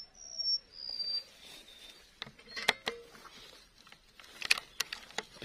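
Short, high whistled bird notes through about the first second, then a few sharp clicks and taps, the loudest about three seconds in and again near four and a half seconds.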